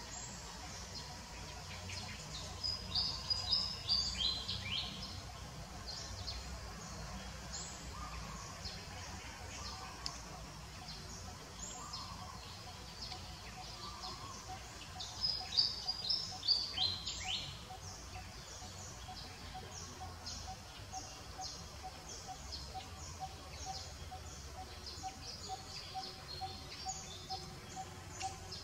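Birds chirping, with two louder runs of high, falling chirps, one about three seconds in and one about halfway through, over a steady low outdoor rumble. In the second half a single short note repeats about three times a second.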